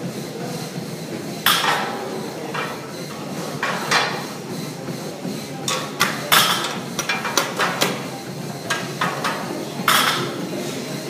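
Metal clanks of gym weights and equipment: four loud sharp knocks a couple of seconds apart, with smaller clicks and rattles between them, over a steady background din.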